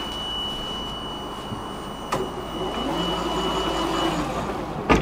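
Tram doors closing: a steady high warning tone sounds, a click about two seconds in sets off the door motor whirring as the panels slide shut, and a loud thump at the very end as the doors meet.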